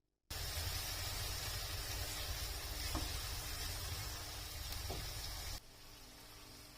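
Food sizzling in hot oil in a pan: a steady hissing sizzle with a couple of faint ticks, starting abruptly just after the start and dropping to a quieter sizzle about two-thirds of the way through.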